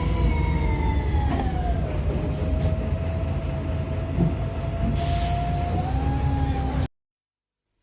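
VDL SB200 single-deck bus with a Voith automatic gearbox running under way, heard from on board: a steady low rumble under a drivetrain whine that falls in pitch over the first two seconds, holds, then rises a little about six seconds in. The sound cuts off abruptly about seven seconds in.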